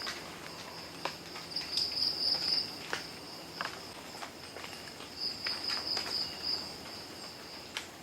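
Insects trilling in the night, a high steady buzz that swells into louder bursts about a second long, twice. A few faint sharp clicks sound in between.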